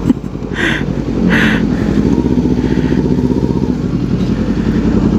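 Kawasaki Ninja 250 parallel-twin engine idling steadily with an even, fast pulse. Two brief hisses come about half a second and a second and a half in.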